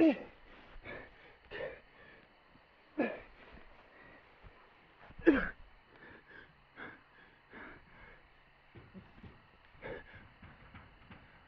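A person gasping and wheezing in short, irregular breaths, the loudest near the start and about three and five seconds in.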